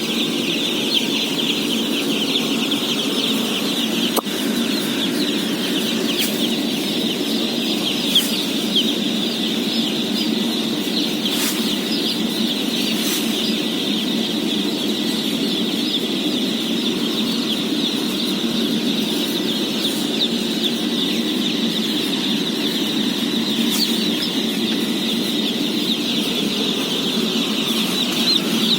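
A large flock of day-old chicks peeping all at once, a dense, unbroken chorus of high chirps, over a steady low hum.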